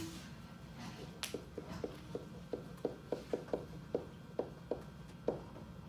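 Dry-erase marker writing on a whiteboard: a quick run of short, separate strokes as a short phrase and an arrow are written, over a faint steady room hum.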